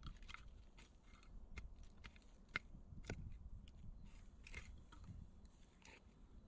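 A short-handled digging tool chopping and scraping into loose soil: faint, irregular crunching knocks a few tenths of a second apart.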